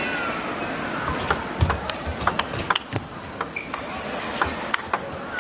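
Table tennis ball in a fast rally, clicking off the paddles and the table: a quick, uneven run of sharp clicks, several a second, starting about a second in.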